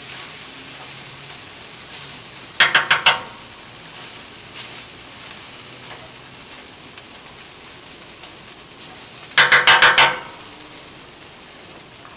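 Wire potato masher clanking on the steel top of a Blackstone griddle while mashing black beans into refried beans: a quick run of about four clanks about three seconds in, and about six more about nine seconds in. Beans sizzle steadily on the hot griddle underneath.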